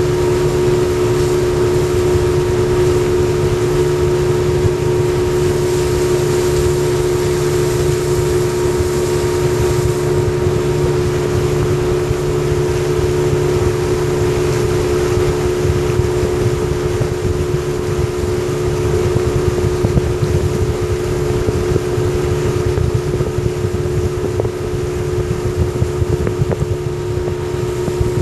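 Yamaha 40 hp two-stroke outboard motor running steadily at constant cruising speed, an even drone that holds its pitch throughout.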